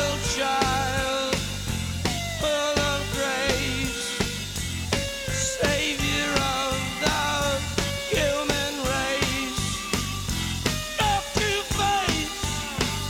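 Rock music with a steady drum beat under a wavering lead melody.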